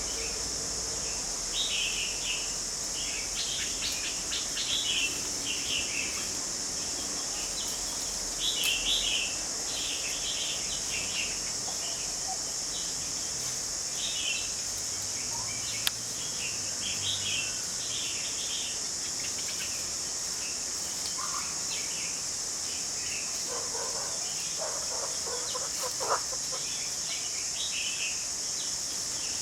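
Small birds chirping in short scattered clusters over a steady high insect drone, with an occasional sharp click.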